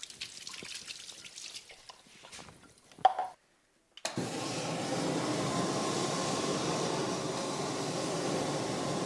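Faint clatter and water at a sink with a sharp knock about three seconds in, then, after a brief cut, a bakery oven's burner being lit and running with a steady rushing noise.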